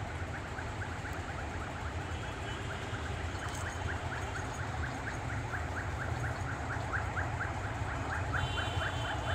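A steady low rumble under a fast, even run of short high chirps, about four a second, that grow louder toward the end.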